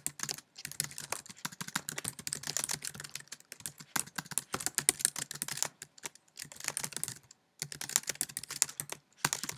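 Typing on a computer keyboard: fast runs of keystrokes, broken by a few short pauses.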